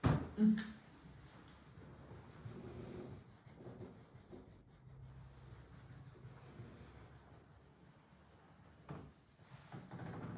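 Marker pen scribbling on a whiteboard in short back-and-forth strokes as a small square is coloured in. A sharp knock sounds right at the start.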